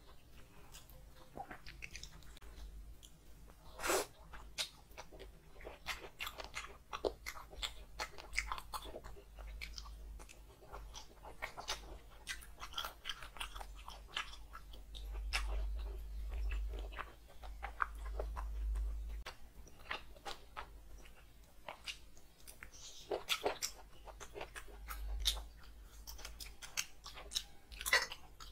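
A person chewing and biting food close to a clip-on microphone, with many irregular short clicks and crunches of the mouth and food.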